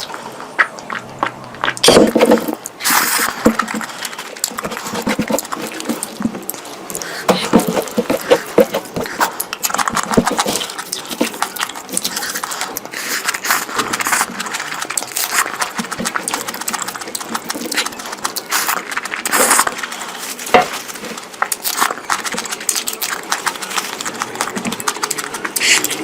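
Close-miked eating: wet chewing and smacking of curry and meat, a dense, irregular run of short clicks and squelches.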